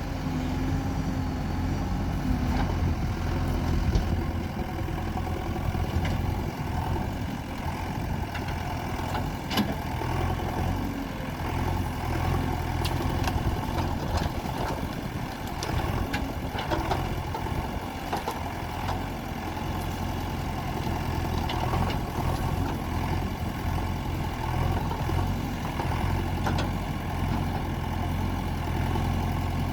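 JCB 3DX backhoe loader's diesel engine running steadily while it digs, with occasional sharp knocks scattered through.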